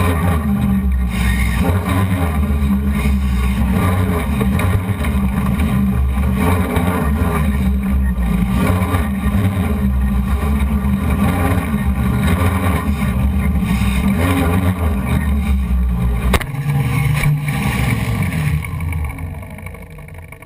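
Six brushless motors and 12-inch propellers of a hexacopter running in flight, a steady loud drone heard from the onboard camera. About sixteen seconds in a sharp knock cuts in, the drone changes, and the sound dies away near the end.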